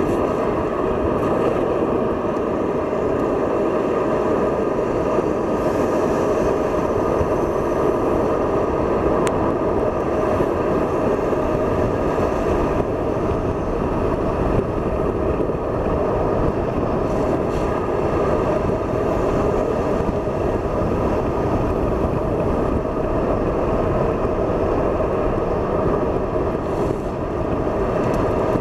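Steady engine and road noise of a BMW heard from inside its cabin while it is driven through corners at moderate speed.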